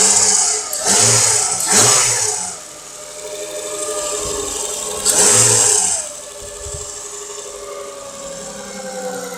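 Nissan RB25DE 2.5-litre straight-six engine blipped several times, with steady idling between the blips; the last blip comes about five seconds in. A foreign hum comes from the timing-belt drive, which has grown louder since the timing belt and idler rollers were replaced.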